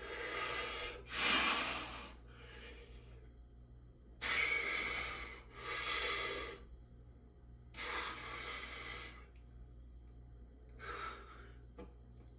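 A man breathing heavily, with several deep, audible breaths in and out separated by short pauses: he is winded from holding flexed bodybuilding poses after a hard workout.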